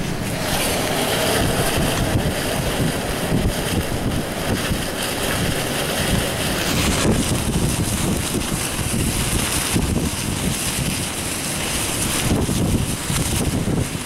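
Strong, gusty squall wind blowing across the microphone: a loud, steady rushing noise with an unsteady low rumble underneath, its hiss easing a little about halfway through.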